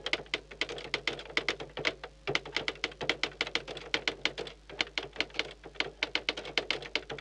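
Rapid typing clicks, typewriter-style key strikes at about seven a second with a few short pauses, as a caption is spelled out letter by letter.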